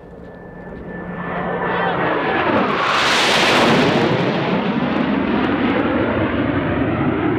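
Two Boeing F/A-18 Hornet jets passing low from opposite directions: their engine noise swells to a peak about three seconds in, sweeping down in pitch as they cross, then stays loud as they fly away.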